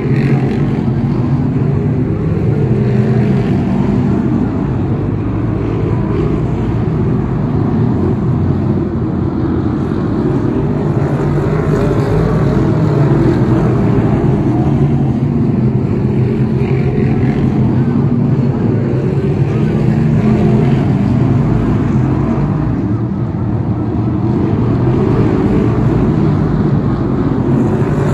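A pack of BriSCA F1 stock cars' V8 engines racing round a shale oval: a loud, continuous, overlapping engine drone that stays fairly steady.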